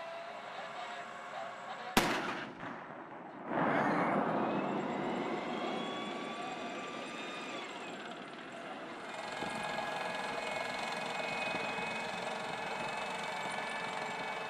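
A single sharp gun report about two seconds in. From about three and a half seconds, an M1A1 Abrams tank's gas-turbine engine runs with a steady high whine over the rumble of its tracks as it drives.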